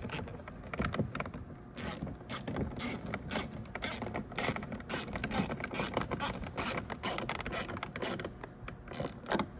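Rapid, irregular clicking and rattling of parts being worked on the minivan's door trim and handle assembly.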